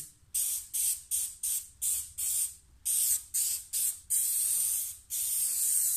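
Hose-fed spray gun spraying clear contact adhesive onto chipboard, hissing in about eleven bursts as the trigger is pulled and released; most bursts are short, and a few near the middle and the end last most of a second.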